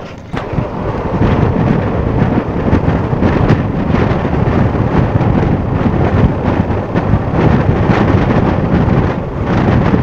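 Loud, steady rushing rumble of wind buffeting the microphone at an open coach window, over the running noise of the moving narrow-gauge train. It starts suddenly just after the beginning.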